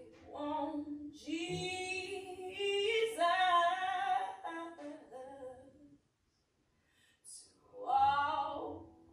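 A woman singing solo in held, sustained phrases, breaking off for about a second near two-thirds of the way through before one more short phrase.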